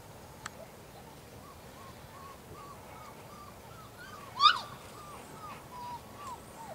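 Young golden retriever puppies squealing: a run of short, high whimpers about three a second, with one loud yelp about four and a half seconds in.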